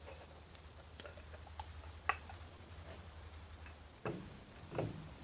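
Light metal clicks and taps as a lathe's stepped cone pulley and gear assembly is handled and worked into the headstock, followed by two duller knocks about four and five seconds in as it is seated. A steady low hum runs underneath.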